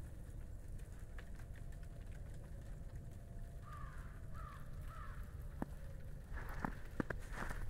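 A bird calls three times about four seconds in, short harsh calls a fraction of a second apart. Near the end, footsteps start crunching in wet snow.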